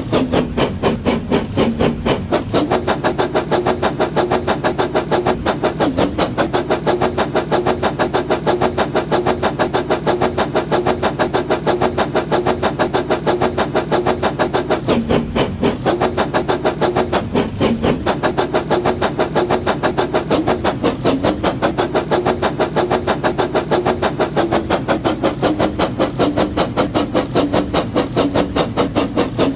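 Brick-built model train running with a steady, regular rhythmic beat, about four beats a second, over a constant hum.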